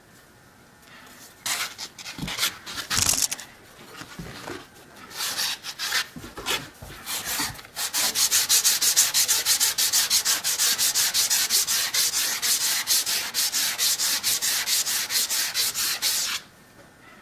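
Steel cabinet-scraper blade, cut from an old handsaw, rubbed back and forth on oiled abrasive paper to polish its face. A few irregular strokes come first, then from about eight seconds in a fast, even run of strokes that stops shortly before the end.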